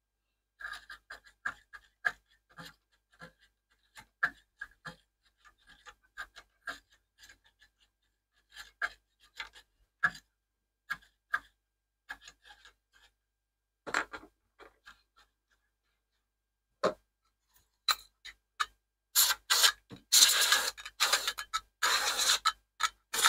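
A small brush scrubbing at a preset potentiometer on a monitor's circuit board to clean off residue: many short scratchy strokes, then a pause and louder, longer scrubbing bursts near the end.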